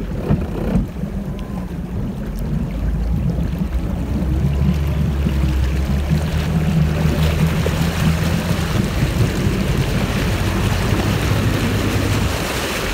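Motorboat engine running while towing a tube, with water rushing past. About four seconds in it gets louder and higher as the boat speeds up, then eases slightly near the end.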